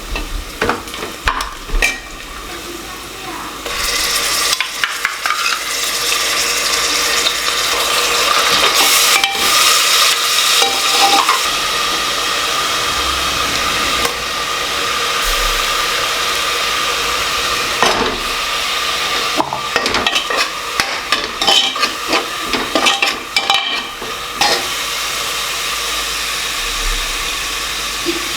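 Food sizzling as it fries in a metal pot, with a spoon stirring, scraping and knocking against the pot. The sizzle grows louder about four seconds in.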